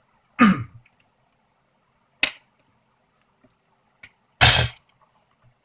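Handling of a spiral-bound paper notebook: two short, loud thumps about four seconds apart, with a single sharp click between them.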